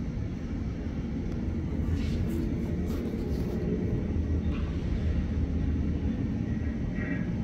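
Boeing 747 freighter's four jet engines at taxi power, heard across the airfield as a steady low rumble.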